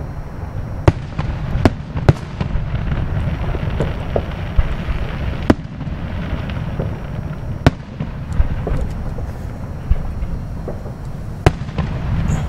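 Distant aerial fireworks shells bursting: sharp bangs at uneven intervals, sometimes two within half a second, sometimes several seconds apart, over a continuous low rumble.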